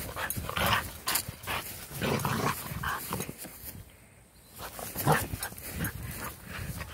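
A dog making short, irregular play noises while mouthing and pushing a ball across grass, with a brief lull about four seconds in.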